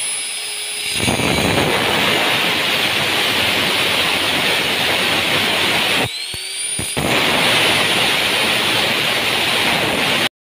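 Electric angle grinder with an abrasive cut-off disc cutting through slotted steel angle iron, a loud continuous grinding. About six seconds in, the disc comes off the cut briefly and the motor's whine rises as it speeds up, then it bites into the steel again before the sound cuts off abruptly.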